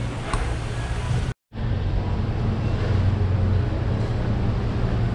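Steady low machine hum over a constant background noise, cutting out completely for a split second about one and a half seconds in.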